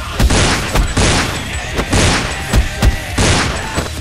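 A rapid volley of dubbed gunshot sound effects, about half a dozen blasts at uneven intervals, each with a reverberant tail, plus deep thuds underneath.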